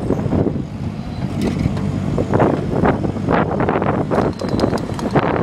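Bobcat compact excavator's diesel engine running, with irregular louder surges of noise from about two seconds in as it works the wreckage.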